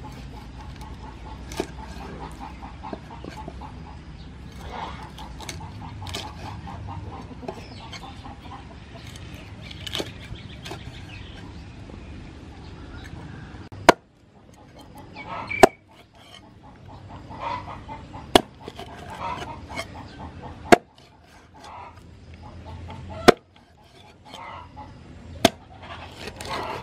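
Heavy cleaver chopping a snakehead fish into steaks on a wooden chopping board. About halfway through come about six sharp chops, roughly one every two and a half seconds, and the first half holds lighter knocks. Chickens cluck in the background.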